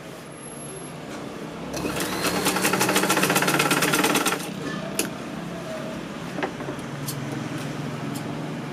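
Sewing machine stitching in one fast run of about two and a half seconds, starting a couple of seconds in and then stopping. A few light clicks follow.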